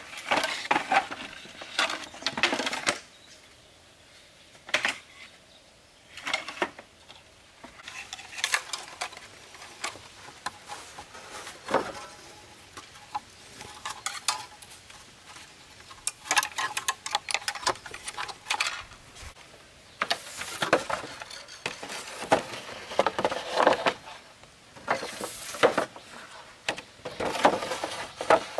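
Hollow bamboo poles and split bamboo halves knocking and clattering against each other as they are handled and stacked. The knocks come in irregular clusters with short pauses between.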